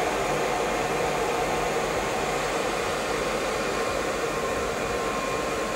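Cooling fans of a water-cooled Antminer D7 mining rig running steadily: an even rushing of air with a steady whir, from the water-cooling radiator unit's fans and the miner's power-supply fan while the miner runs.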